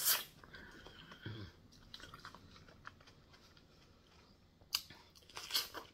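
Close-up chewing and lip smacking of a person eating raw vegetables, with a loud smack at the start and a few sharper crunches or smacks near the end. There is a brief low hum about a second in.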